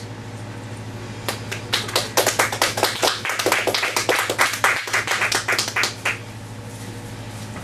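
A small audience applauding with their hands: a dense run of irregular sharp claps that starts about a second in and thins out and stops about six seconds in, over a faint steady electrical hum.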